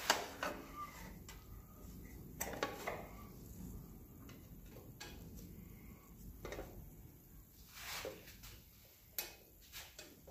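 Scattered metal clinks and knocks, a dozen or so spread unevenly, as a cover panel is handled and fitted onto a thickness planer.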